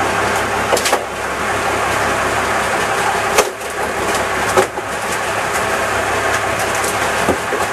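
Fishing boat's engine running steadily, a constant drone, with a few sharp knocks about one, three and a half, and four and a half seconds in.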